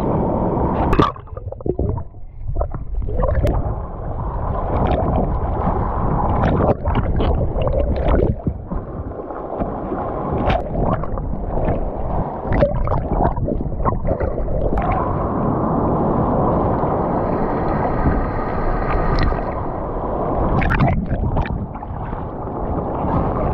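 Sea water sloshing, splashing and gurgling around a head-mounted action camera as a diver swims through choppy surf, with many sharp clicks of water hitting the camera housing. Midway the camera dips under the surface into a rush of bubbles.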